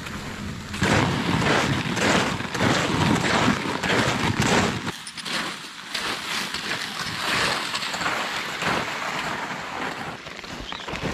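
Snowshoe footsteps crunching through snow at an even walking pace. For about the first five seconds a low rumble of wind on the microphone runs under the steps, then it stops.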